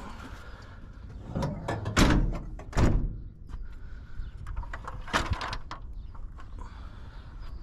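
A series of knocks and bangs with handling noise in between, the two loudest about two and three seconds in and another about five seconds in.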